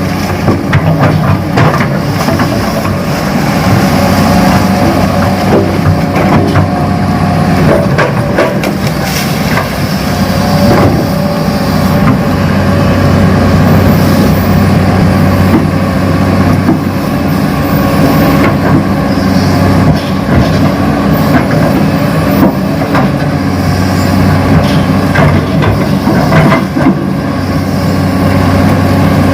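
Radio-controlled Hitachi model excavator working: a loud, steady engine-like drone with scattered clicks and scrapes as it moves soil.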